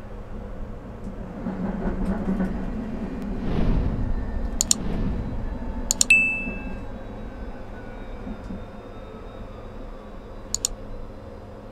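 Electric tram running along its track, heard from inside the driver's cab: a steady hum and rumble that swells a few seconds in, with a faint whine slowly falling in pitch later on. Over it, a sharp click, then a click with a short bell-like chime about six seconds in, and another click near the end, from a subscribe-and-like button animation.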